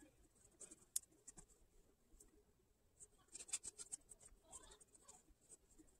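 Faint rustling and scratching of cotton fabric being pushed right side out with metal forceps, with a sharp click about a second in and a flurry of small clicks and scrapes a little past halfway.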